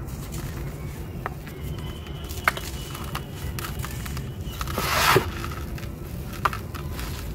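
Dry lumps of sand-cement mix crumbling in the hands, with grit trickling and pouring into a plastic bucket and scattered sharp ticks of breaking grains. About five seconds in, a louder rush of crumbling sand builds and then stops, over a steady low background rumble.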